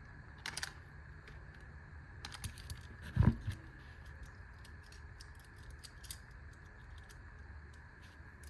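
Small clicks and taps from small objects being handled at a workbench, with one louder thump about three seconds in.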